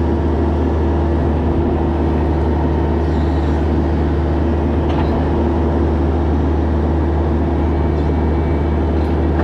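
Bobcat E26 mini excavator's diesel engine and hydraulics running steadily at working speed as the bucket digs into soil, heard close up from on the machine.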